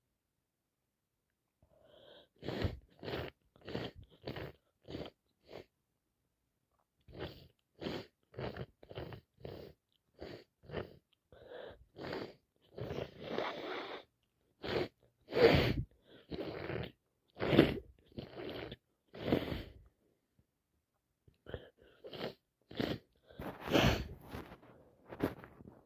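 A person with a heavy head cold sneezing and sniffing in a long run of short, sharp bursts, about two a second. They come in several bouts with brief pauses between them, the loudest in the middle and near the end.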